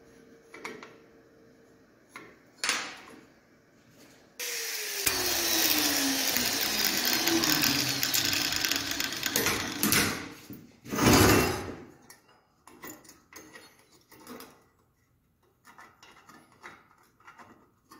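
A power tool cutting metal for about five seconds, its motor whine sinking steadily in pitch as it bites, then a second short loud burst of cutting; this is a patch piece being cut from exhaust pipe to close the crossover-pipe hole. Light knocks and clinks of the pipe being handled come before and after.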